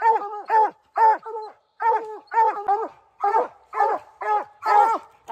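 Coonhounds barking treed at the base of a tree, a steady run of short barks about two a second: the tree bark that tells the hunter the dogs have a raccoon up the tree.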